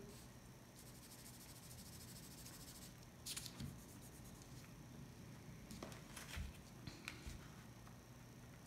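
Faint scratching and rustling of tracing paper being handled and drawn on with a pencil, with a few brief, slightly louder brushes about three, six and seven seconds in.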